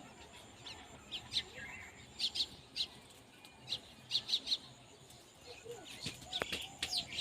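Birds chirping in short, quick high notes, repeated over and over, with a few lower calls joining near the end.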